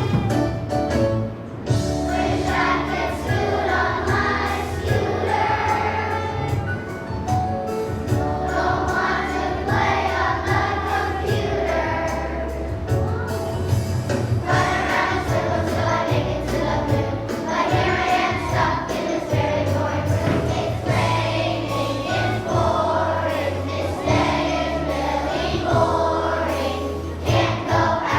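Children's choir singing a song over an instrumental accompaniment with a steady bass line.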